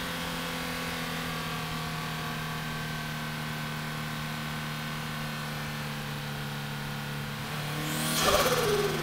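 Car engine droning steadily at a constant cruising speed, with no revving or boost build. A little after eight seconds in, a brief loud whoosh of rushing noise swells up and its pitch drops.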